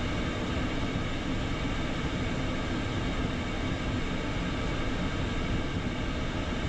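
Steady cockpit noise of an Embraer Phenom 300E taxiing with its two Pratt & Whitney PW535E turbofans at idle. It is an even rumble with a faint whine of several steady tones over it.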